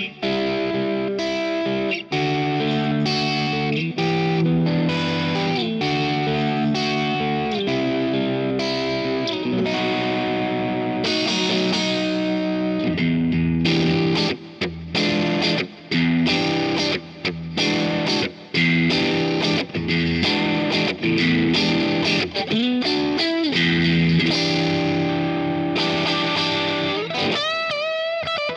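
Squier Affinity Series Stratocaster electric guitar played with overdrive, strumming chords that ring out. About halfway through the chords turn short and choppy with brief gaps between them. Near the end the pitch wobbles and bends downward.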